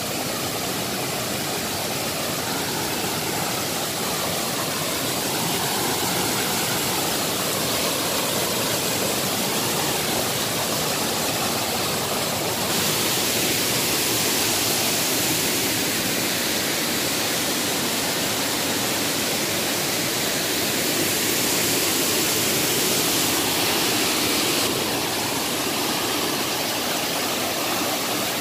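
Waterfall cascading over boulders into a rock pool: a steady, full rush of falling water that grows brighter and hissier partway through, then eases back a little near the end.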